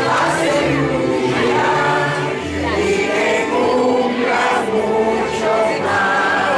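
A birthday song playing: several voices singing together over a steady bass line.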